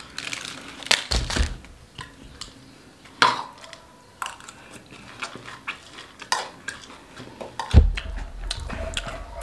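Metal spoon clinking and scraping against a ceramic bowl during eating, in scattered short clicks. A heavier thump comes near the end as the bowl is set down on the desk.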